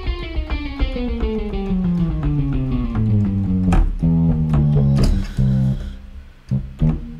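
Omnisphere's 'Bluesy Lead' patch, a distorted blues-guitar sound, played as a software instrument. It runs down in pitch over about three seconds, then plays louder low notes with short breaks near the end. The track is sounding with its MIDI channel set to 1 instead of All.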